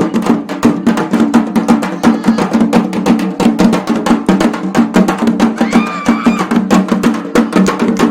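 Traditional drums beaten in a fast, dense, continuous rhythm, many strokes a second. A brief whistle-like tone rises and falls about six seconds in.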